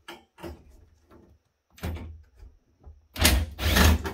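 Sheet-metal parts of a network-switch fabric module being handled during disassembly: a few light clicks and knocks, then a louder, rough rasping noise lasting under a second about three seconds in.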